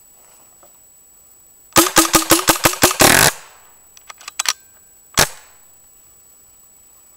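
RAP4 Gen4 paintball marker on remote-line compressed air firing a quick string of about eight shots, roughly seven a second, ending in a longer burst. A few light clicks follow, then one more single shot about five seconds in.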